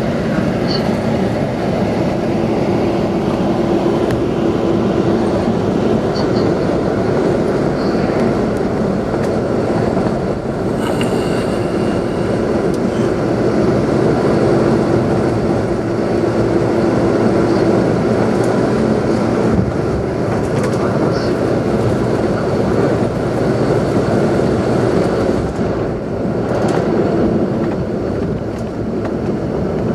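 Inside a moving bus: steady engine and road noise, with a faint hum that comes and goes.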